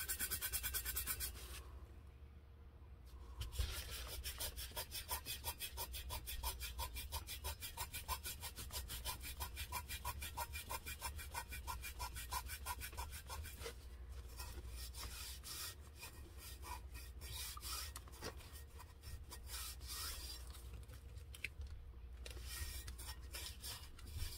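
Fingertips rubbing over glitter on a tumbler in quick, even strokes, smoothing it down. The strokes pause briefly about two seconds in.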